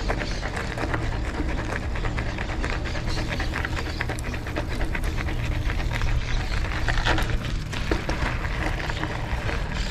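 Wind rumbling on the microphone of a moving bicycle, with rapid irregular clicking and rattling from the bike.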